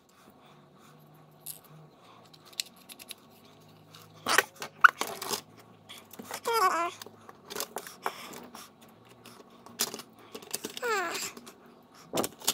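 Plastic and metal parts of a car heater control unit being handled and pressed together by hand: scattered clicks and knocks, with two brief squeaks that fall in pitch, about six and eleven seconds in.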